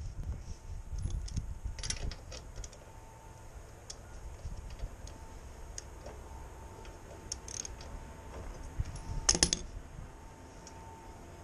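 Scattered light metallic clicks and taps of hand tools being handled while work begins on a small mower engine to check the spark plug, with a louder clatter of several clicks about nine seconds in.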